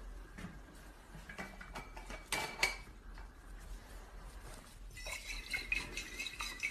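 Glassware being handled: a few light clinks about two and a half seconds in, then a busier run of clinks with a faint glassy ring over the last couple of seconds.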